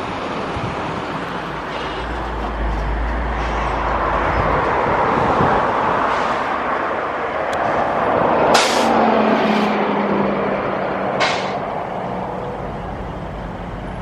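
Airbus A220-300's Pratt & Whitney PW1500G geared turbofans rushing as the airliner rolls out along the runway after landing. The rush grows louder toward the middle and then eases, with a hum that falls slightly in pitch late on and three short high hisses in the middle.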